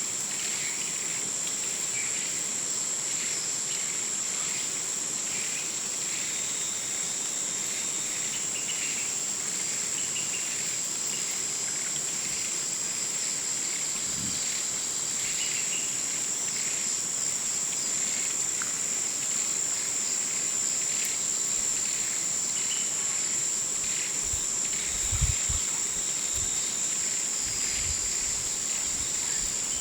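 Jungle afternoon ambience: a steady high-pitched insect drone with scattered short chirps over it, and a few low thumps about 25 seconds in.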